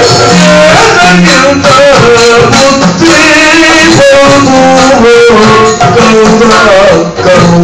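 Tenkuthittu Yakshagana music played loud: a singer's voice over rapid strokes on a chende drum.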